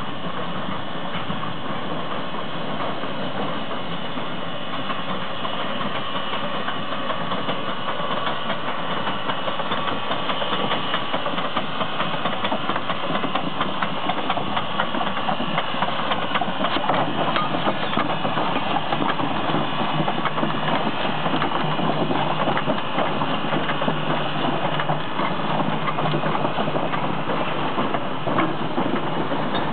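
1912 Heisler geared steam locomotive running slowly past: a rapid beat of exhaust chuffs and mechanical clatter from the running gear and wheels on the rail, growing louder as it draws near.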